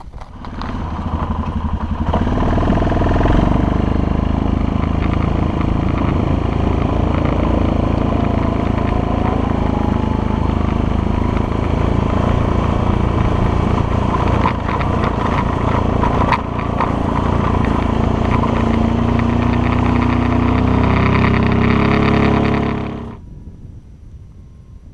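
Small gasoline engine running loud and steady at high revs for about 22 seconds, its pitch shifting a little near the end before it cuts off suddenly.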